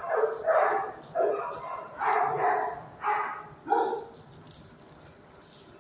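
Dogs barking in a shelter kennel: about five barks or short bark clusters over the first four seconds, then the barking stops and only a faint background remains.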